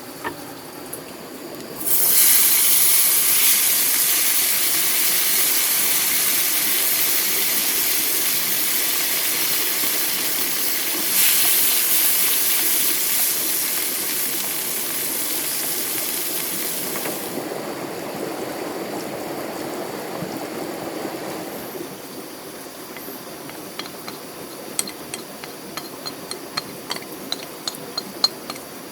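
Water rushing out in a strong hissing spray. It starts suddenly about two seconds in and cuts off abruptly about halfway through. Near the end come a quick run of small sharp clinks.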